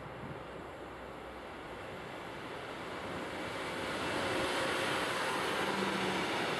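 Electric locomotive hauling a freight train of tank wagons, approaching and passing close by: the rolling noise of wheels on the rails grows louder and is loudest from about four seconds in, as the locomotive passes and the tank wagons roll by.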